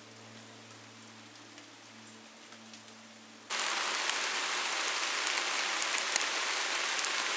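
Steady rain falling, an even hiss full of sharp drop ticks, which starts suddenly about three and a half seconds in; before that only a faint low hum is heard.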